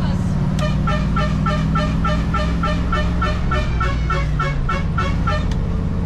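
MAN Kat 4x4 truck's diesel engine running steadily under way, heard from inside the cab. Over it, from about half a second in until near the end, a rapid run of about fifteen identical short chirps, three or four a second.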